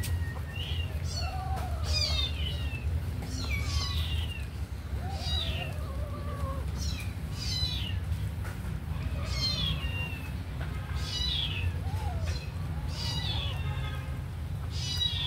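Kitten meowing over and over: about a dozen short, high mews, each falling in pitch, roughly one a second, over a steady low hum.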